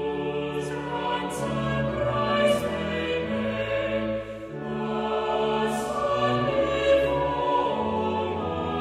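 A choir singing a hymn in harmony, with long held notes and a short break for breath about four seconds in.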